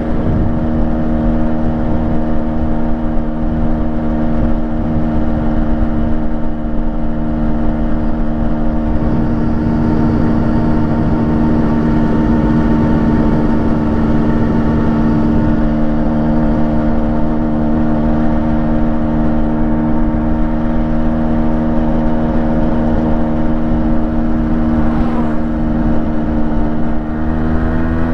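The 132 cc single-cylinder two-stroke engine of a freshly rebuilt 1998 Yamaha RX135 runs at a steady speed through its stock exhaust. Its pitch rises slightly near the end.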